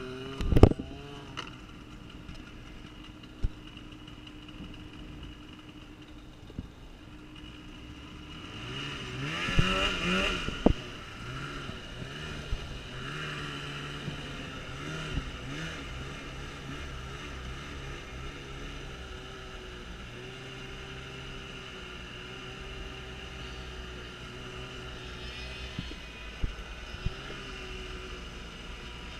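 Snowmobile engine running, climbing in revs about nine seconds in and then running steadily, with a few sharp knocks.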